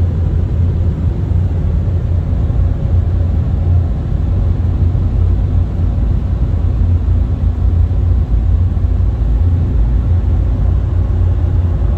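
Ryko Voyager II rollover car wash gantry running right beside the car, heard from inside the cabin as a loud, steady low rumble with no breaks.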